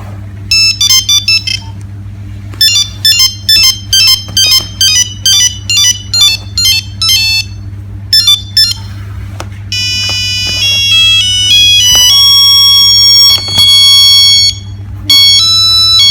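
Nokia 3610 mobile phone's speaker playing ringtone tunes, one beeping note at a time. First come several short, fast phrases with brief gaps between them, then from about ten seconds in a louder tune of longer held notes. A steady low hum runs underneath.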